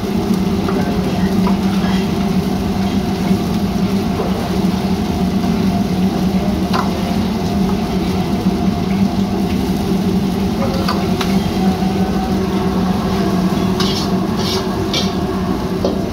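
Food frying and sizzling in a wok as it is stirred and scraped with a metal ladle and spatula, with a few sharp metal clinks, mostly near the end. Under it runs the steady drone of the gas wok range.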